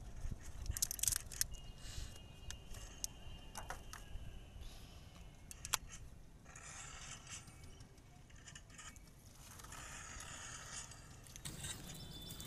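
Small clicks and light scrapes of batteries being pressed into the plastic battery compartment of a toy RC helicopter's remote control, with one sharper click about six seconds in.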